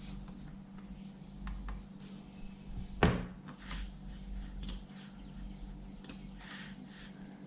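A keyboard and its packaging being handled on a table: scattered light clicks and short rustles, with one louder knock about three seconds in, over a steady low hum.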